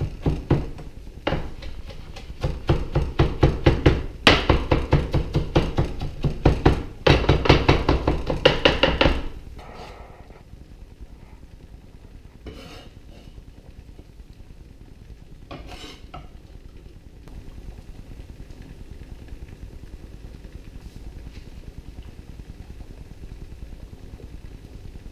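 Kitchen knife chopping rapidly on a cutting board, an even run of about four strokes a second, for about the first nine seconds; after that only faint, scattered clicks of handling.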